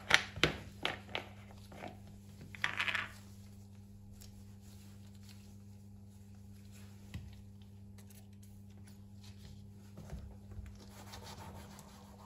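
A few sharp clicks and a short rustle of a cleaning cloth and product bottle being handled, then a steady low hum with faint rubbing of the cloth on the shoe's rubber sole near the end.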